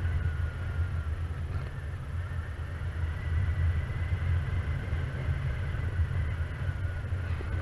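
Wind buffeting the camera's microphone during paraglider flight: a steady, fluctuating low rumble, with a faint thin high tone held underneath.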